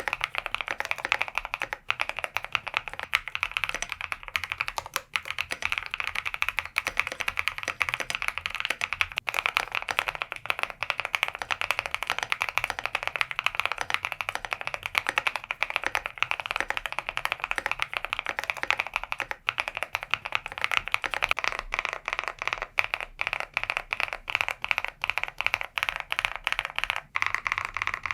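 Fast continuous typing on an Osume Play75 mechanical keyboard: a dense, unbroken stream of keystroke clicks.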